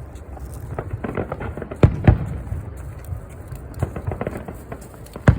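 Aerial fireworks shells bursting: two loud booms about two seconds in, a quarter second apart, and another near the end, with lighter crackling pops between them.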